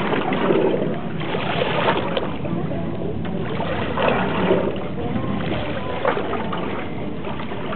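Sea water sloshing against a small boat's side, with several short splashes from a hooked spiny dogfish at the surface.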